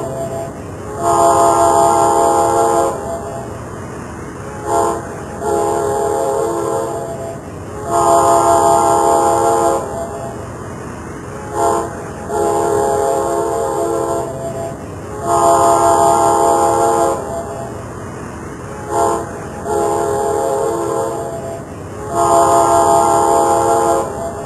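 Train horn sounding a chord of several tones in a repeating pattern of long and short blasts, the pattern coming round about every seven seconds, over the steady rumble of the moving train.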